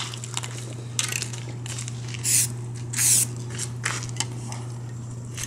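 Aerosol camo spray-paint can giving two short hisses, a little under a second apart, near the middle, with a few faint clicks around them.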